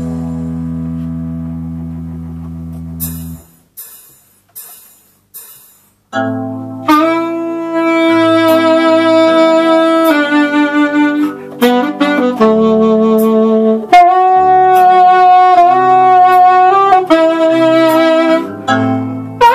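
A held chord on an Ensoniq SD-1 synthesizer fades away over about three seconds, and a few soft clicks follow. About six seconds in, a saxophone comes in playing a melody of long held notes over a lower accompaniment.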